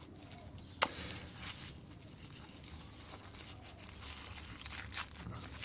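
Packaging being handled and unwrapped: faint rustling with a sharp click a little under a second in and a few small clicks near the end.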